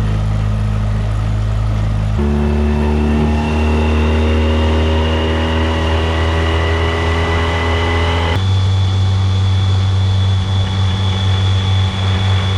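A boat's engine running at speed under way, loud and steady. Its pitch jumps to a new level about two seconds in, climbs slightly, then changes again about eight seconds in.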